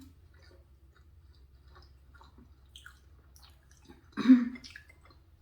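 Close-up chewing of soft mac and cheese pasta, with faint wet mouth clicks. About four seconds in there is one short, loud throaty sound.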